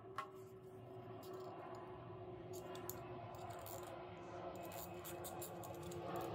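Small metal clicks and clinks as a steel welding ground clamp and a ratcheting wrench are handled and fitted together. The clicks come irregularly and grow more frequent about halfway through.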